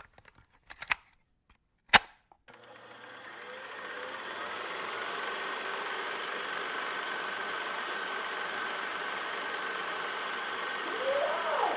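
A few sharp clicks, the loudest about two seconds in, then a steady machine-like whirring noise fades in over a couple of seconds and holds.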